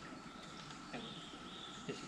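Quiet woodland ambience with a few faint bird calls about a second in, over a thin steady high tone.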